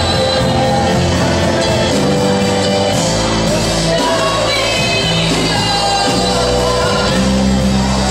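Live gospel worship music: a woman lead singer on a microphone with a group of backing singers, over sustained low instrumental notes that shift about three seconds in.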